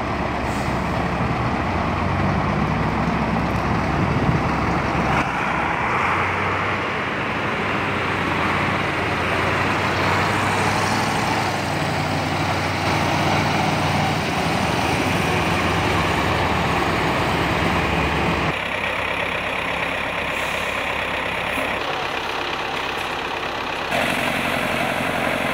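KAMAZ concrete mixer truck's diesel engine running steadily, with the sound changing abruptly twice near the end.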